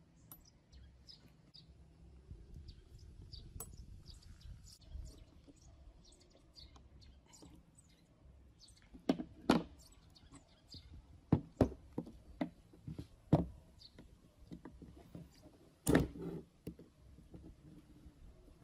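Sharp metal clicks and knocks from the steel parts of a ratchet tie-down buckle being handled and its pin worked with pliers: a pair about halfway, a quick run of four or five more, then one loud knock near the end.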